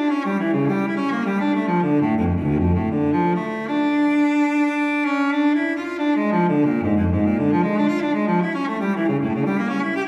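Instrumental background music: a slow melody in the low and middle range that twice sinks to deep notes.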